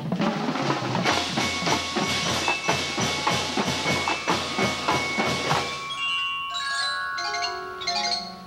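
Marching band drumline of snare drums, tenor drums and timpani playing a fast, steady drum beat. About six seconds in, the drumming thins out and a run of short, ringing pitched notes takes over.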